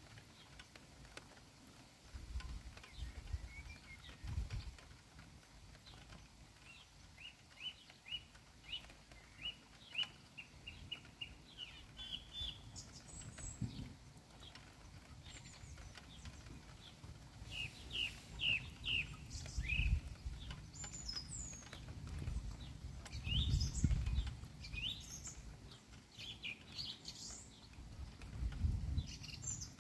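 Small birds singing in runs of short, quick chirps, with several low rumbles in between; the loudest rumble comes about two-thirds of the way through.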